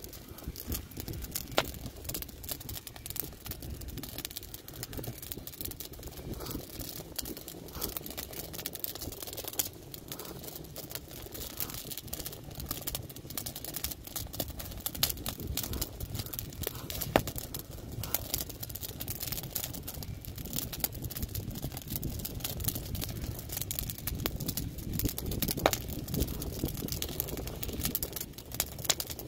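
Wood fire crackling, with frequent small pops and a few sharper snaps over a steady low rush.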